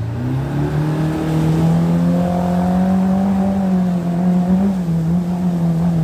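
Outboard jet motor throttled up to take off, its pitch climbing over the first couple of seconds as the boat gets going, then running steadily at high speed.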